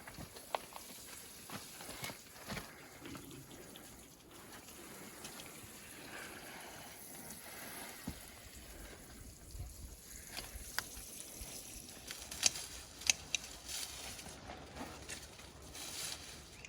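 Water trickling as garden plants are watered, with scattered small clicks and rustles of handling; a few sharper clicks come about twelve to thirteen seconds in.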